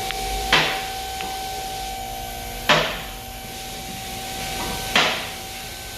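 Vehicle lift raising a car, its safety locks clanking three times about two seconds apart over a steady hum.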